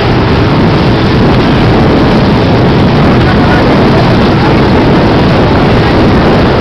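Motorboat running at speed: a loud, steady engine drone mixed with the rush of water along the hull.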